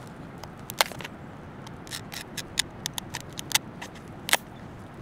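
Knife cutting open the shell of a cooked king crab leg: a string of about a dozen sharp cracks and clicks as the shell splits.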